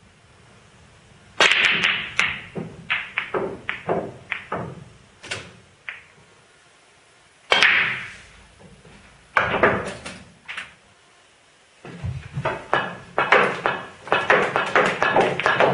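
Snooker balls clicking: the cue striking the cue ball and balls knocking into one another in runs of sharp knocks, with quieter gaps between shots, the knocks crowding together near the end.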